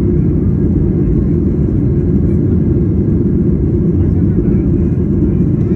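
Steady low cabin roar of a Boeing 737-900's CFM56-7B turbofan engines and rushing airflow, heard from inside the cabin during the climb-out just after takeoff.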